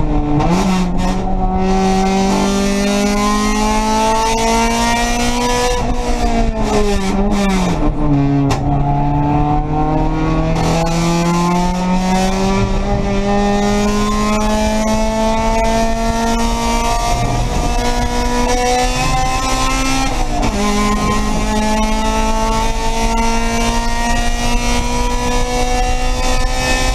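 Race car engine heard from inside the stripped cockpit under hard acceleration, its revs climbing slowly and evenly through long pulls. The revs fall away around six to eight seconds in, then drop sharply at a gear change about twenty seconds in before climbing again.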